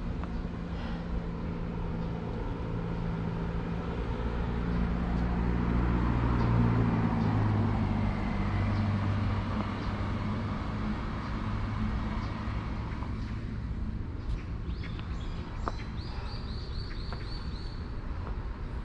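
A car engine running as it passes on the road, its hum swelling to a peak about seven seconds in and then fading. Near the end a bird gives a quick run of repeated high chirps, about three a second.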